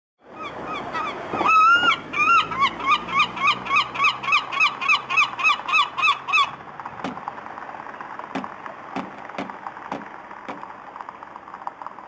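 Herring gull calling: one drawn-out note, then a fast run of short yelping notes at about four a second. After about six and a half seconds the calling stops and its bill knocks sharply against the car's bumper, a few separate taps.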